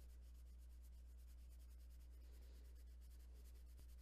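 Faint scratching of a Sargent Art watercolor crayon rubbed back and forth across a coloring-book page, over a steady low hum.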